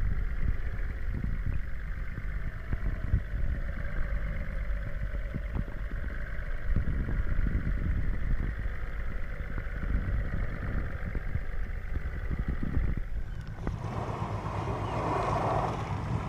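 Fishing boat's engine running steadily under a low rumble, with wind buffeting the microphone. About three seconds before the end a louder rushing hiss of wind and water comes in.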